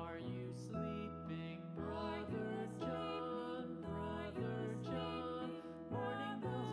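Background music: a slow, gentle lullaby-like piece of sustained chords that change about once a second.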